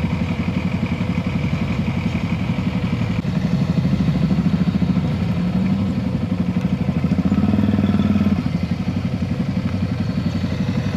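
Motor vehicle engine running steadily, its pitch rising twice and settling back.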